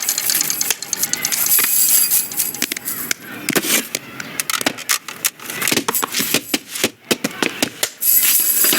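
Film sound effects: a rapid, irregular run of clicks, clatters and small knocks of hard objects, thicker at the start and near the end.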